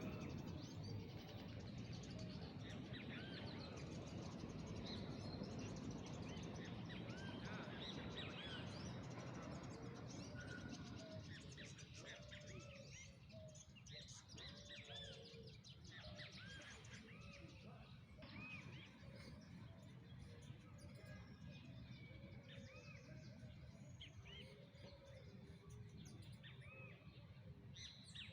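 Several birds chirping and calling with many short, arching notes, over a low steady rumble of background noise that eases after about ten seconds.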